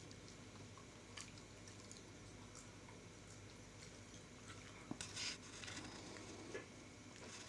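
Faint wet chewing and lip-smacking from a cocker spaniel working at toffee stuck in her teeth, with a few small clicks and a louder smack about five seconds in.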